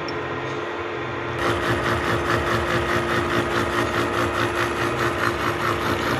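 Milling machine running, then from about a second and a half in a gear cutter milling a tooth slot in a Duralumin spur gear blank: a steady machine hum with a fast, even, rhythmic chatter as the cutter teeth bite into the aluminium.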